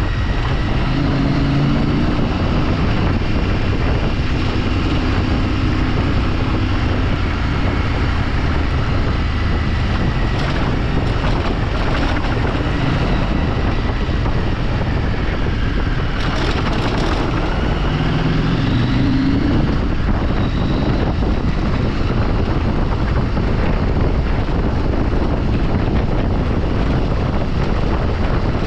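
A vehicle on the move: its engine runs under a steady rush of wind on the microphone. The engine pitch rises and falls a few times, most clearly around the middle.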